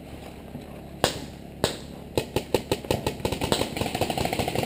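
Game guns firing: two single sharp shots about half a second apart, then from about two seconds in a run of rapid shots that becomes a fast even rattle of automatic fire near the end.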